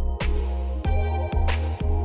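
Electronic background music with a deep, sustained bass line and a regular percussive beat.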